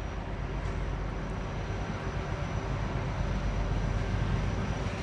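ČD Cargo class 742 diesel locomotive's six-cylinder diesel engine running as it approaches hauling a freight train: a steady low rumble with a faint high whine, slowly growing louder.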